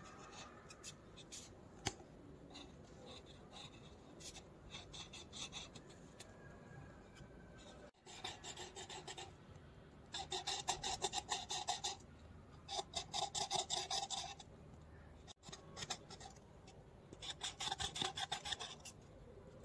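Felt-tip marker drawing on paper: faint scratchy strokes in quick back-and-forth runs, each a second or two long, with short pauses between them.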